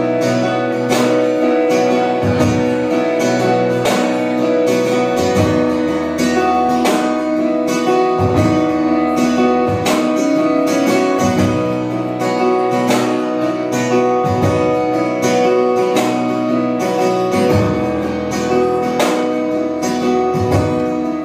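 Acoustic guitar strumming a steady rhythm, the instrumental intro of a song before the vocals come in.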